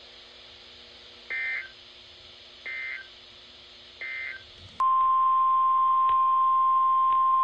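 Three short chirping bursts of EAS digital data about 1.4 seconds apart: the SAME end-of-message code closing a weather radio alert. A loud, steady single-pitch NOAA Weather Radio 1050 Hz alert tone follows, starting a little after the third burst and holding without a break.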